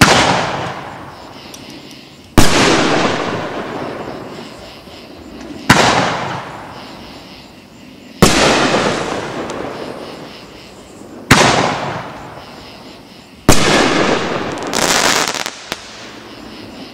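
A 500-gram 'Rolling Thunder' fireworks cake firing its 3-inch aerial shells: six loud bursts, two to three seconds apart, each a sharp report that fades away over a couple of seconds. A short rush of noise follows the last burst near the end.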